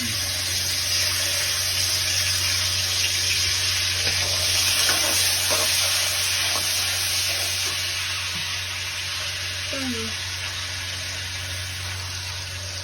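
Chili bean paste (doubanjiang) frying in hot oil in a pan, a loud steady sizzle with occasional stirring, easing slightly toward the end. This is the base for mapo tofu.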